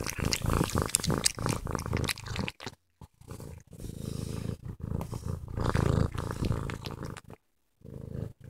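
Cat purring up close against a phone's microphone, with licking and fur rubbing on the phone making crackly clicks. The sound cuts out twice briefly, about three seconds in and again near the end.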